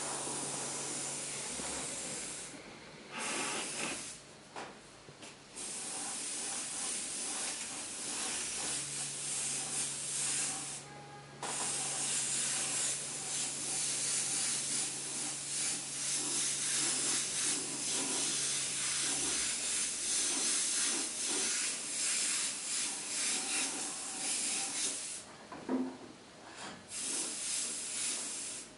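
Airbrush hissing as it sprays paint, in long bursts broken by short pauses several times. A low steady hum runs underneath for part of it.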